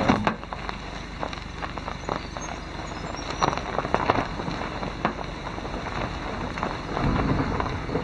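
Car tyres rolling slowly over a dirt track strewn with dry leaves, twigs and gravel: a steady crunching crackle full of small pops.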